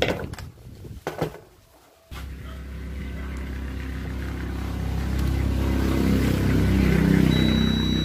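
A few clicks of hand tools on the workbench. Then, about two seconds in, a steady low engine hum starts suddenly and grows louder. Near the end a steady high-pitched beep begins.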